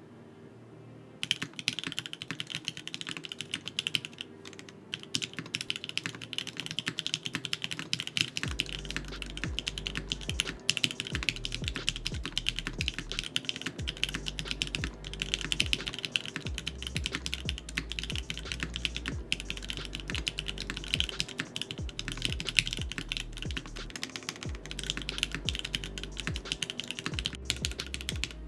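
Continuous fast typing on an MKC75 custom mechanical keyboard with Gateron KS-3 full nylon switch housings, NK Silk stems and GMK keycaps, giving a deep clacking. The typing starts about a second in.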